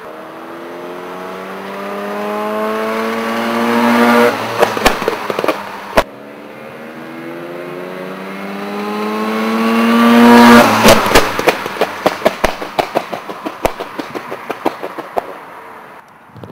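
Mazda RX-7 rotary engine revving up twice, each time climbing steadily in pitch for about four seconds. Each run ends with the exhaust backfiring in a string of sharp pops on lift-off; a single loud pop comes between the two runs, and the second string of pops thins out over several seconds.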